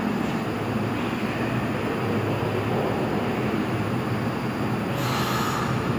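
R179 subway train moving slowly through a station, with a steady low hum from the car's motors and equipment. About five seconds in there is a short burst of hissing air.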